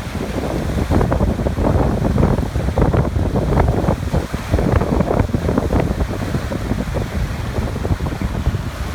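Strong wind buffeting the microphone in irregular gusts, over the wash of waves on the coast.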